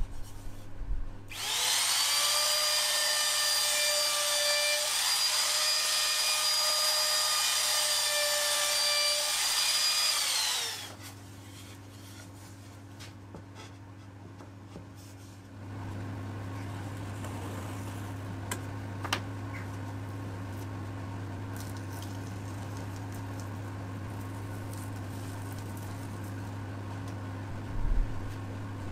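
A handheld power tool's motor spins up about a second in, runs at a steady high whine for about nine seconds, then winds down. Later a quieter steady hum starts about midway and carries on, with a brief knock near the end.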